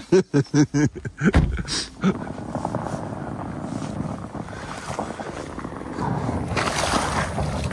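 A thump about a second and a half in, then a GMC Hummer EV's tires crunching and churning through deep snow as the electric truck pulls away, with wind noise on the microphone swelling near the end.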